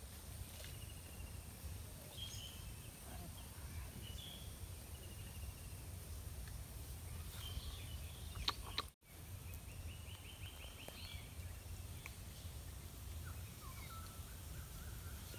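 Outdoor ambience over a steady low rumble, with small birds chirping now and then, including two short trills in the second half. A couple of sharp clicks come just before the sound cuts out for a moment, about nine seconds in.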